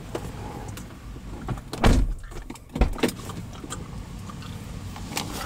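A few scattered knocks and clicks over a low steady hum; the loudest is a dull thump about two seconds in.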